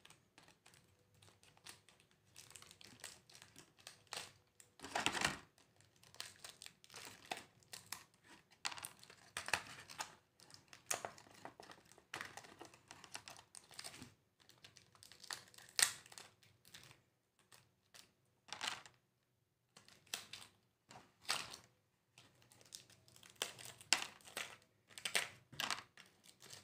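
Thin clear plastic packaging crinkling and crackling in irregular bursts as it is handled and pulled off small plastic hair clips.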